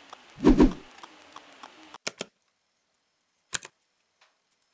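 Small cardboard pieces handled and pressed together on a cutting mat: scattered light clicks, with a soft thump about half a second in. After about two seconds the sound drops almost to silence, with only a couple of isolated clicks.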